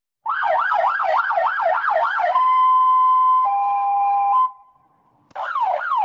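AI-generated police siren from AudioCraft Plus's AudioGen model: a fast yelp warbling up and down about four times a second, then steady tones at two pitches. It cuts off about four and a half seconds in, and the sweeping siren starts again near the end.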